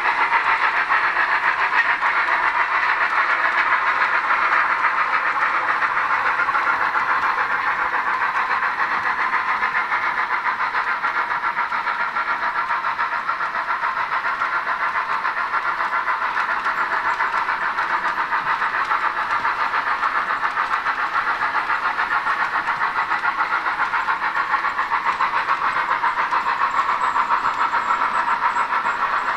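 Sound decoder of an H0 model steam tank locomotive (a Roco BR 86) playing steady steam chuffing with hiss through its small loudspeaker, mixed with the rolling of the model freight train on the track.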